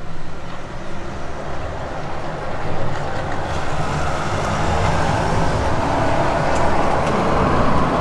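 Road traffic: a motor vehicle going by, its noise swelling over the second half over a steady low rumble.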